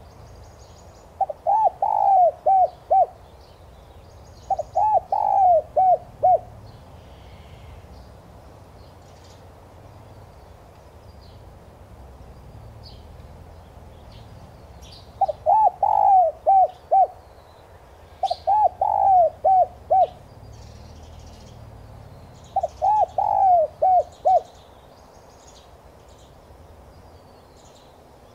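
Spotted dove cooing: five phrases of several quick, rhythmic coos each. Two come early, then three more after a pause of about ten seconds.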